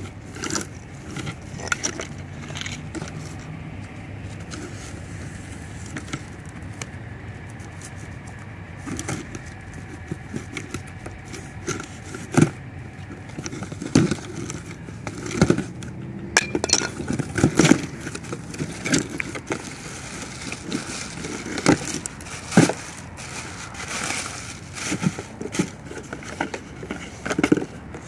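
Cardboard shipping box being opened by hand: packing tape slit with a knife, cardboard flaps pulled back and plastic packing handled. Irregular sharp crackles and knocks over a steady low background noise, few at first and much more frequent from about halfway through.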